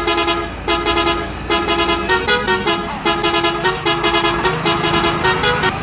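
A horn tooting a short repeating tune in quick blasts of about half a second each, over a steady low rumble.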